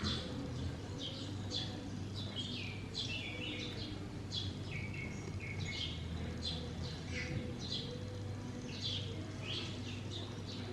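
Small birds chirping continuously, many short falling chirps a second, over a low steady hum.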